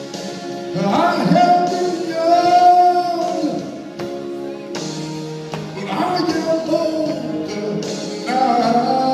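A man singing a gospel song over instrumental accompaniment, in phrases with long held notes that waver, rising to louder passages.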